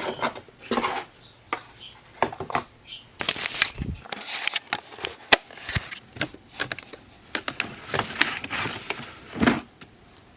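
Boxes and packaged items being handled and put away: an irregular run of clicks, knocks and rustles, with one sharp click about five seconds in.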